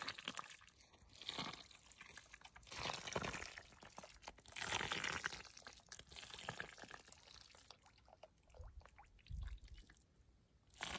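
Hands churning and squelching through thick wet mud, with sloshing and dripping of muddy water in irregular bursts.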